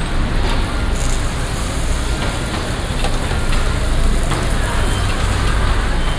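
Roti frying in oil on a hot flat griddle, a steady crackling sizzle, over a low steady rumble.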